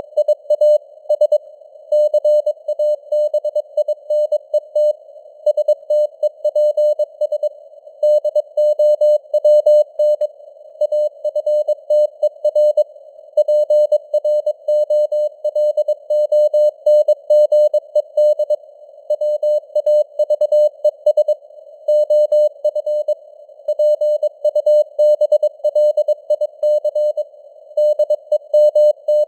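Morse code (CW) sent at 22 words per minute: a single mid-pitched sidetone keyed on and off in dots and dashes, over a narrow band of hiss that simulates radio receiver noise.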